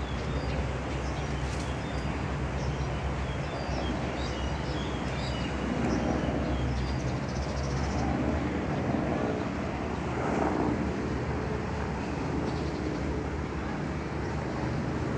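Harbour-front ambience: a steady low engine drone with a wash of background noise, and small birds chirping briefly and high above it in the first half.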